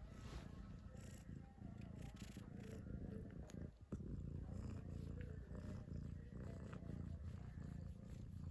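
A cat snoring in its sleep: a faint, continuous low rumble with a brief break about four seconds in.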